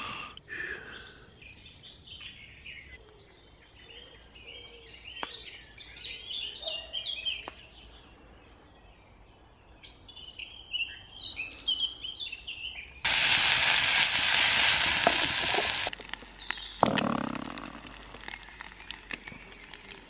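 Woodland birdsong, several small birds chirping and singing. About two-thirds of the way through, a loud steady hiss cuts in abruptly, runs for about three seconds and stops, followed by a fainter rushing sound that dies away.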